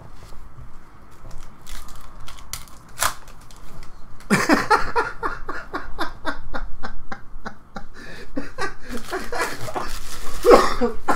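A man laughing in a long run of short bursts, starting about four seconds in and flaring again near the end. Trading cards being handled make a few light clicks and rustles before the laughter.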